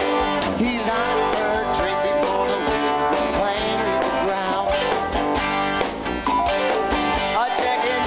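Live band playing an instrumental passage: a lead guitar line with bending, gliding notes over bass guitar and drums.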